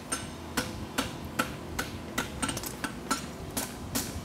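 Hand hammer striking red-hot horseshoe bar stock on an anvil's horn: a steady run of blows, about two to three a second, each with a short metallic ring, as the toe of the shoe is bent.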